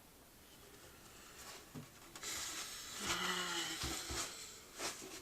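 A rustling, hissing noise lasting about two and a half seconds, starting around two seconds in, with a few light knocks.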